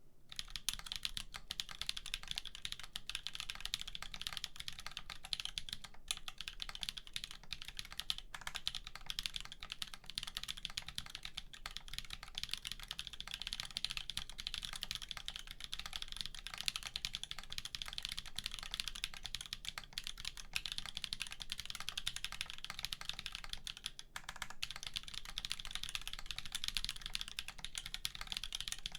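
Continuous fast typing on an undampened aluminum Wampus mechanical keyboard with a POM flex plate, Holy BSUN tactile switches lubed with 205g0, and GMK Oblivion keycaps: a steady stream of key clacks, with a brief lull a little after the middle.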